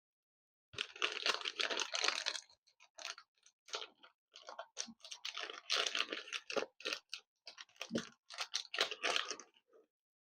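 Irregular crackling and clicking from soldering on a fluxed laptop motherboard, coming in short clusters with brief gaps.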